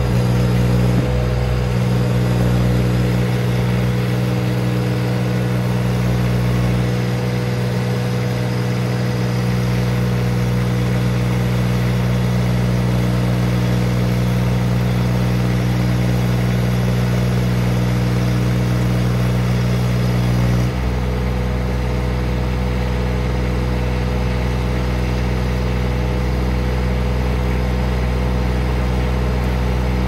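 Baumalight TRL620D mini skid steer's engine running steadily while its loader raises a full IBC tote of firewood on pallet forks. About two-thirds of the way in, the engine note changes abruptly to a lower rumble.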